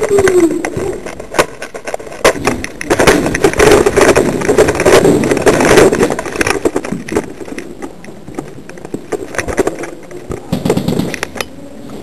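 Camera handling noise: clothing and gear rub, scrape and knock against the microphone as the wearer moves. It comes as a dense run of clicks and rustling, busiest a few seconds in.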